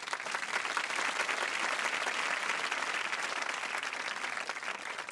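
Studio audience applauding: many hands clapping together, swelling through the middle and thinning out near the end.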